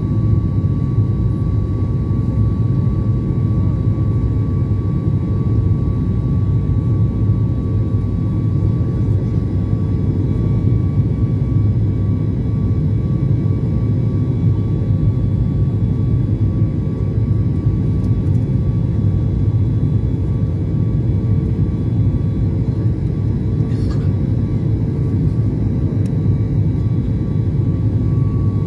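Jet airliner cabin noise during the climb after takeoff: a steady, even roar of the engines and airflow with a steady high whine over it.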